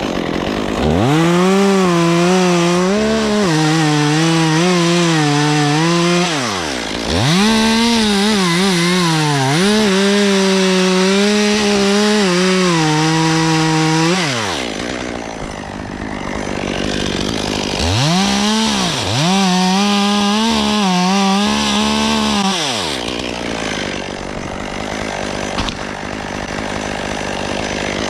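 Chainsaw cutting a log of tulip poplar. The engine revs up to full throttle in three long cuts, its pitch sagging and wavering as the chain works through the wood, and falls back between cuts and again after the last cut, about three-quarters of the way through.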